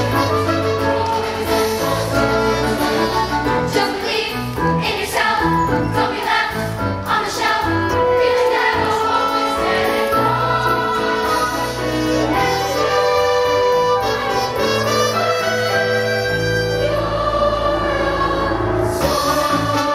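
Stage-musical song: a chorus singing over instrumental accompaniment with a steady bass line.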